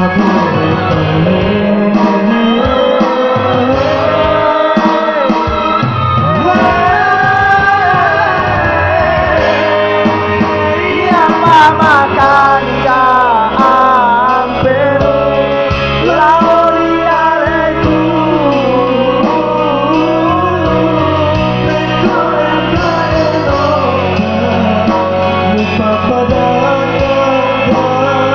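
A man singing a song over guitar-based backing music. The melody slides and wavers in quick runs a little before the middle, the loudest part.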